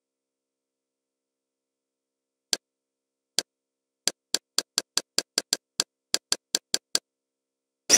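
Kodi menu navigation sound effects: short, sharp interface clicks, one about two and a half seconds in and another a second later, then about a dozen in quick succession as the guide is scrolled, ending in a louder, longer select-type click at the very end. Dead silence between the clicks.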